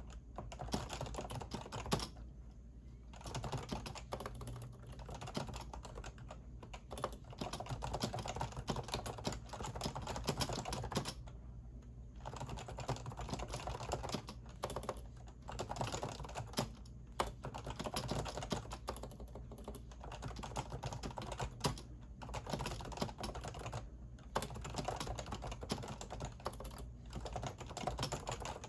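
Typing on a Topre REALFORCE keyboard, its electrostatic capacitive switches giving a fast, steady run of keystrokes with brief pauses every several seconds.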